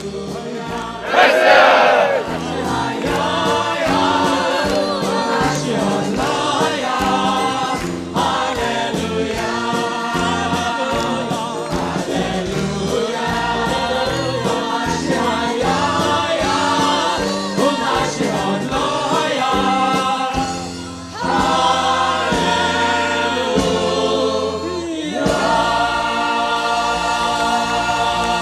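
A choir and a group of singers singing a song together with band accompaniment and a steady drum beat.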